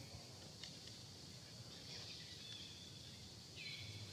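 Quiet forest ambience: a steady high insect hum, with a faint click early and one short, falling high-pitched chirp near the end.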